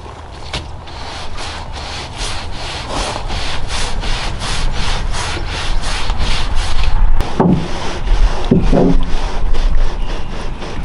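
Soft-bristle deck brush on an aluminum extension pole scrubbing an aluminum boat: quick back-and-forth rubbing strokes, about three a second, steady for most of the time and looser near the end.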